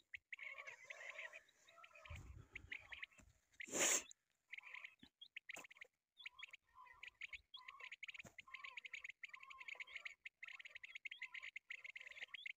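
Bird chirps and rapid trills, dense and fairly faint, with a short loud rustle just before four seconds in.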